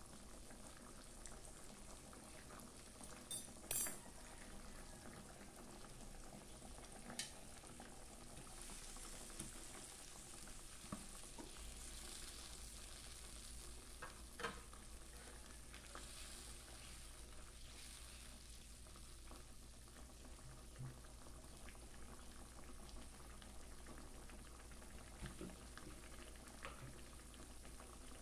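Pot of soup bubbling at a steady boil, a faint even hiss, with a few sharp clicks, the loudest a double click a few seconds in.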